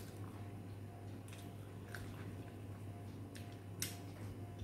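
Eating by hand: faint wet clicks and smacks of chewing, and of biting into a piece of curried chicken held in the fingers, with the sharpest click a little before the end, over a steady low hum.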